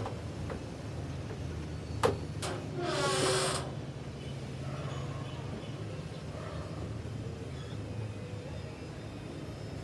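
A steady low machine hum, with two sharp clicks about two seconds in, followed by a hiss of just under a second carrying a tone that slides down and back up.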